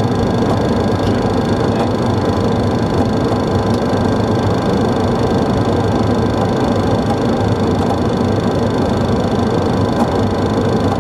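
Steady cabin noise of a Boeing 737 in flight on approach: the even rush of jet engines and airflow, with several constant high tones riding over it.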